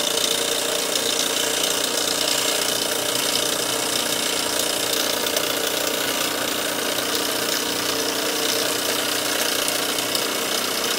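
GF Mars twin-cylinder model steam engine running steadily on steam, going really well.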